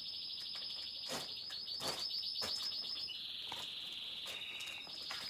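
A bird trilling: one high, rapid trill held for several seconds, shifting slightly lower about three seconds in, with a few faint clicks.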